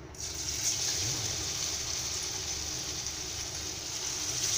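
Parippu vada (lentil fritters) frying in hot oil in a steel kadai. The oil starts to sizzle suddenly as the first fritter goes in, then carries on as a steady hiss.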